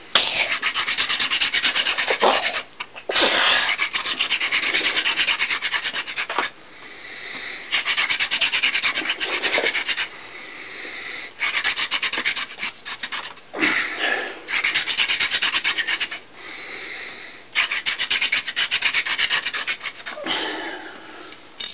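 Hand drill friction fire: a hemp stalk spindle twirled between the palms into a basswood hearth board, a fast rasping rub of hands on the spindle and wood on wood. It comes in bouts of two to three seconds with brief pauses between them, about seven bouts in all, while the drilling raises smoke and wood powder.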